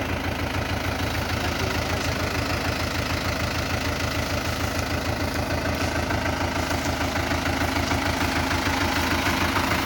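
Farm tractor's diesel engine idling, a steady rapid beat that holds even throughout.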